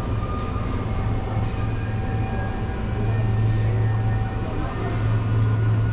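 Steady low electrical hum of refrigeration and ventilation machinery, as from the open refrigerated display cases, with a few faint steady higher tones over it. Two short soft hisses come about two seconds apart.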